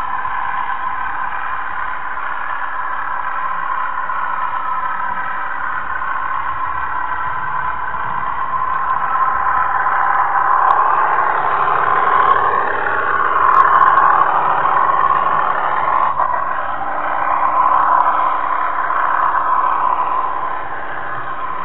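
Narrow-gauge model train running, its small electric motor whining and the wheels rolling on the rails, heard close up from a camera riding on the train. The whine wavers in pitch and grows louder through the middle stretch, then eases near the end.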